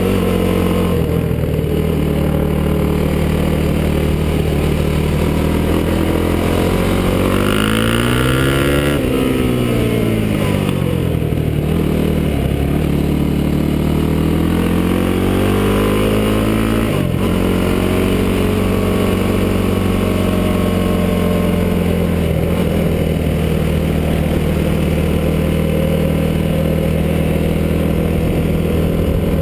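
Yamaha YFZ450 quad's single-cylinder four-stroke engine running while riding, its pitch rising to a peak about nine seconds in and falling, then climbing again and dropping off sharply around seventeen seconds in as the throttle is opened and closed.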